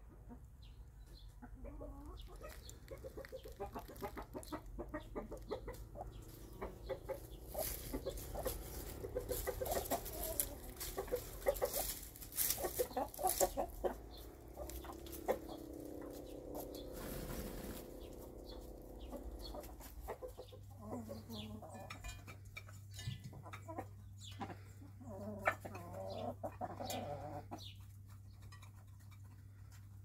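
Domestic chickens clucking: a flock of hens giving short, repeated clucks, with a longer held call about halfway through. A few sharp clicks stand out among the calls.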